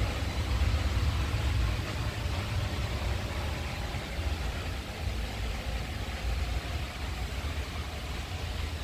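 Steady low rumble with an even hiss: the background noise of a large warehouse store.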